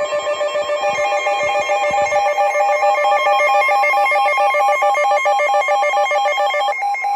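Electronic warbling alert tone: several tones at once, each trilling rapidly between two pitches like a ringing telephone, ahead of an emergency weather alert announcement. Part of the tone drops out near the end.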